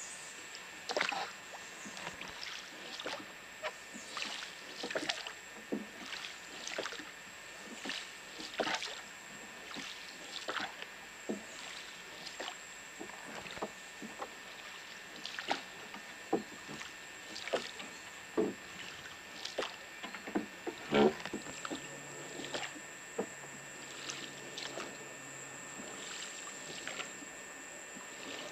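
Wooden rowing boat being rowed along a calm river: oars knocking in their oarlocks and dipping into the water, an uneven run of clicks and soft splashes about one or two a second. The loudest knock comes about two-thirds of the way in, over a faint steady high whine.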